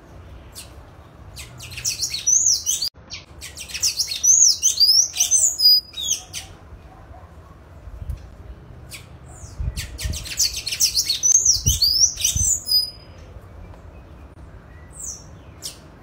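Sayaca tanager singing: two bouts of fast, high, squeaky twittering with quick up-and-down slurred notes, the first starting about a second and a half in and the second about ten seconds in, with a few single notes between.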